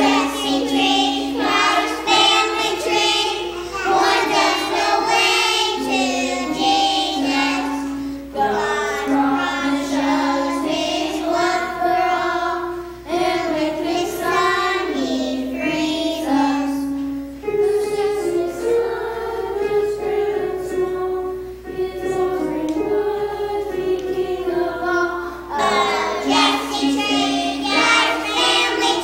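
Children singing a song together, a simple melody of held notes in phrases with short breaks between them.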